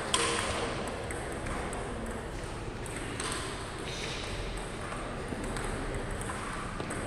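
Table tennis balls struck by paddles and bouncing on the tables in rallies: a run of short sharp clicks, the loudest right at the start.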